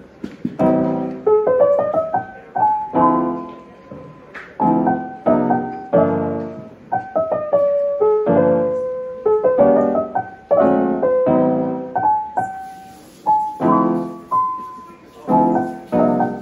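Background piano music: a steady run of struck chords and melody notes, each ringing and fading.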